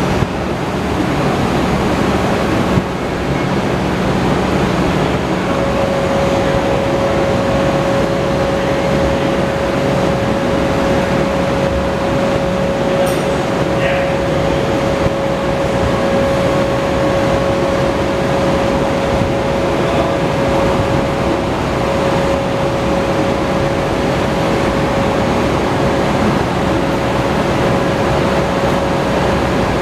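Steady mechanical whir and hum of a 2009 BMW R1200RT front rim spinning continuously on a spin-test stand, for a rim runout check. A higher steady tone joins about five seconds in.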